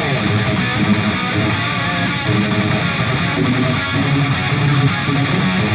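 Background music, a rock track with guitar playing throughout.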